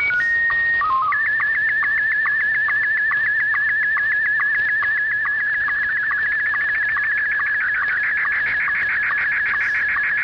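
Slow-scan television (SSTV) image signal from a shortwave recording of a pirate station's transmission. It opens with a short sequence of steady beeping tones, the calibration header. About a second in it becomes a steady warbling tone cut by a rapid, regular ticking of sync pulses that mark each scan line of the picture.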